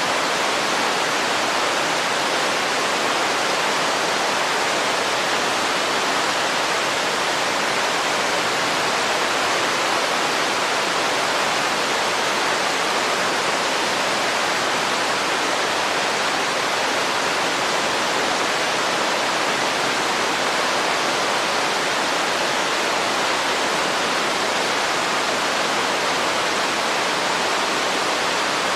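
Running water: a steady, unbroken rush with little low rumble.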